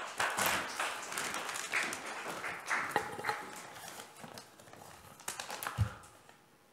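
Large brown paper bag crinkling and rustling as it is unfolded and opened out close to a microphone, loud for the first three seconds or so and then fainter crackles, with a soft knock near the end.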